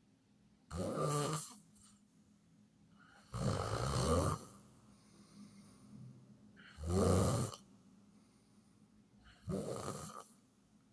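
A person snoring: four snores about three seconds apart, each lasting under a second, with quiet breathing gaps between them.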